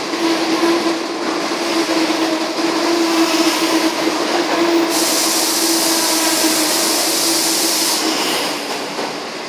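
Type 25T passenger coaches of a through train passing a station platform without stopping: wheels running on the rails with a steady humming tone. A sharp hiss comes in about five seconds in and cuts off suddenly about three seconds later. The sound eases off near the end as the last coaches go by.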